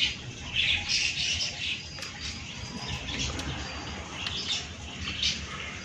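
Small birds chirping in short clusters of high notes, with a few thin whistled notes, over a steady low background rumble.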